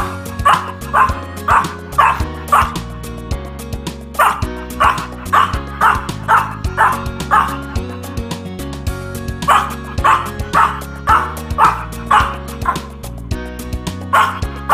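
Miniature pinscher yipping and howling in short pitched notes, about two a second, in runs with brief pauses between, over a music backing track.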